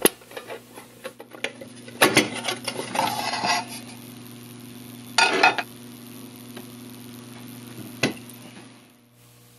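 The sheet-metal lid of an LDG Z-11ProII antenna tuner case being lifted off and handled. There are a few light knocks and metal scrapes, with a short rustling scrape about halfway and a last click near the end.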